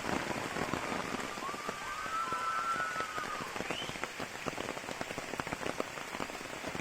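Rain falling steadily, with many close drops pattering sharply. About a second and a half in, a high whistle-like call holds for about two seconds, then a short rising note follows.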